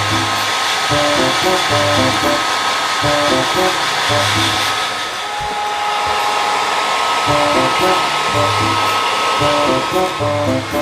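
Hair dryer blowing steadily with a thin whine in its rush of air, over background music.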